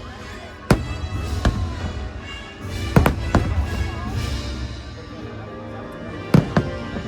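Fireworks bursting in sharp bangs, about six of them, coming singly and in close pairs, over music playing throughout.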